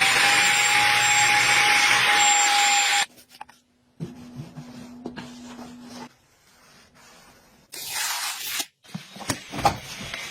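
A small electric appliance's motor running with a steady whine, cutting off suddenly about three seconds in. It is followed by a faint low hum with a few clicks and a short hiss about eight seconds in.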